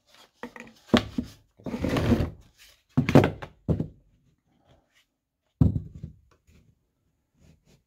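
Scroll-sawn wooden corbel pieces being handled and fitted together: a series of sharp wooden knocks and thunks, with a longer scraping rub about two seconds in.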